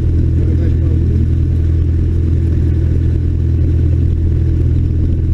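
Cessna 152's four-cylinder Lycoming O-235 piston engine and propeller running with a steady, loud low drone.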